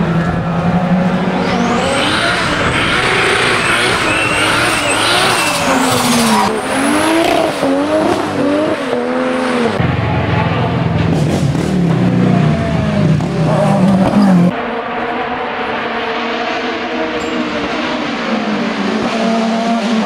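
Racing-car engines at full throttle, climbing and falling in pitch again and again through quick gear changes. The sound cuts abruptly to another car about two-thirds of the way through.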